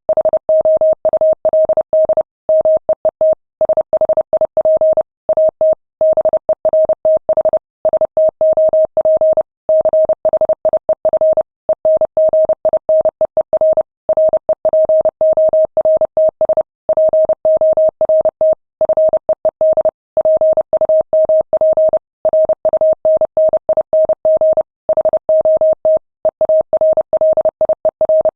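Morse code at 30 words per minute: a single steady beep tone keyed rapidly on and off in quick runs of dots and dashes, broken by short gaps between words, sending ship's radio message traffic.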